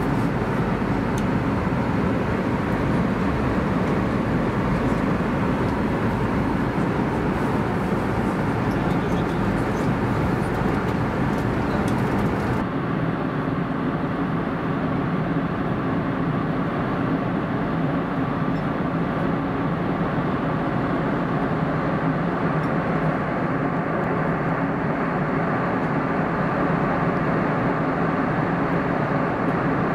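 Steady cabin noise of an Airbus A320neo in cruise: an even rush of airflow with a low engine hum of several steady tones. The sound turns duller about twelve seconds in.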